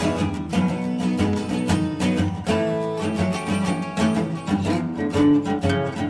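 Background music: acoustic guitar picking plucked notes in quick succession.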